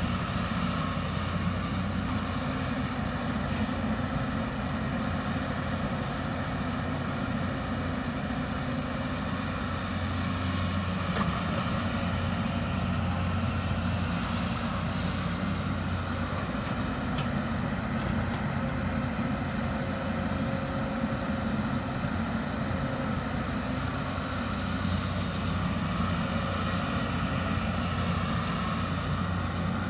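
Hyundai 220 excavator's diesel engine running under work, a steady low drone that swells and eases slightly as the machine digs.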